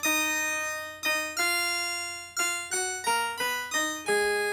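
Several computers running Sonic Pi play a ringtone melody in sync on its chiplead synth, the same notes doubled at pitch and one and two octaves down. It is a string of about nine short, bright notes, each starting sharply and fading.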